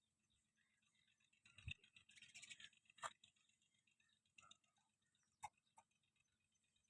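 Near silence, broken by a few faint, scattered clicks and knocks and a short soft rustle about two seconds in.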